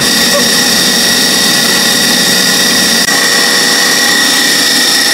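Electric stand mixer running steadily, its motor giving a constant high whine as the beater whips a sugary mixture in a steel bowl.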